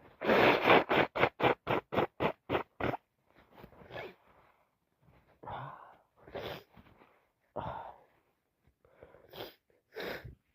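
A woman sneezing from a cold on top of allergies: a rapid string of about ten short sneezes in the first three seconds, then several separate, quieter breathy bursts.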